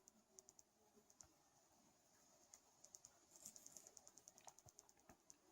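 Near silence with faint, short clicks here and there and a quick run of light ticks in the middle, like fingers tapping or typing on a device.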